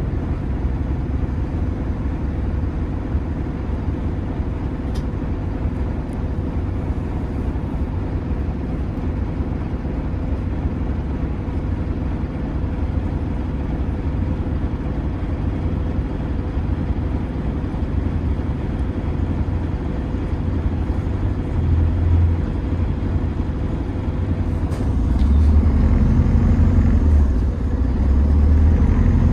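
Steady low engine and road rumble of an Optare Versa single-decker bus heard from inside the passenger cabin, growing louder near the end as the bus pulls harder.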